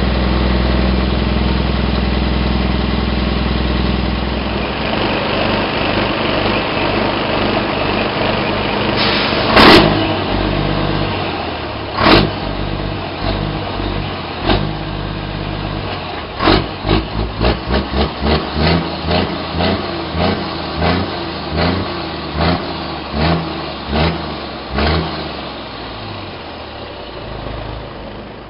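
Scania R420 truck's diesel engine with an open exhaust, running steadily at low revs for the first few seconds, then rougher as the truck rolls slowly. A loud knock comes about ten seconds in. From about seventeen seconds there is a run of short rev blips, roughly two a second, which thin out and fade near the end.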